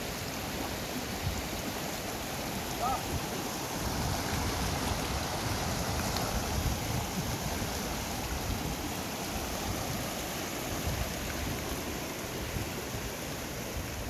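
Steady rushing of a small mountain river running over rocks.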